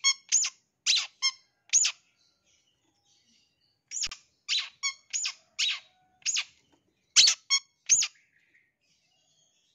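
Long-tailed shrike giving short, harsh, sharp calls one after another: a handful in the first two seconds, a pause, then a run of eight or so more that stops about eight seconds in.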